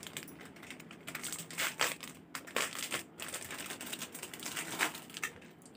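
Crinkly plastic packaging rustling and clicking in irregular bursts as a small clear plastic jewellery box is handled and opened.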